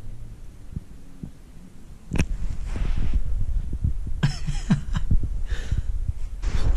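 Soft coated wheaten terrier nosing and sniffing right at the microphone: low thumps and fur rubbing against the camera, with several short sniffs, louder from about two seconds in.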